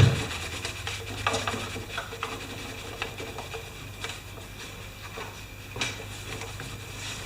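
Light clicks, taps and rustling of parts and tools being handled during a mower tune-up, with a sharp knock at the start and a louder tap near the end, over a steady low hum.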